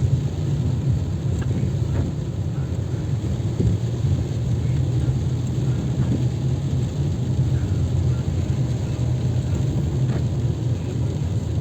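Steady rain falling during a subsiding thunderstorm, a constant heavy low rumble under a lighter hiss, with a few faint ticks of individual drops.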